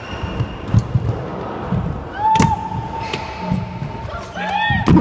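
Skateboard rolling on a ramp, with low rumbling thuds and sharp clacks of the board about two and a half seconds in and again at the end, over background music.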